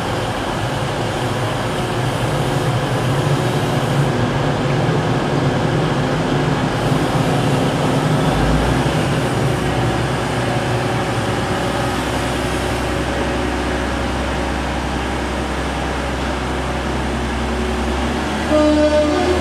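Class 185 diesel multiple unit's Cummins diesel engine running steadily while standing at the platform, with a deeper low hum joining about eight seconds in. A brief, louder pitched tone sounds near the end.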